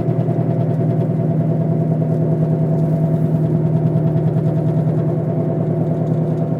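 Car grinding and whining while driving: a steady low drone with a fast, regular pulse several times a second. The noise appeared the day after the wheel bearings were replaced, grows louder under acceleration and shakes the car, and stops when braking to a halt.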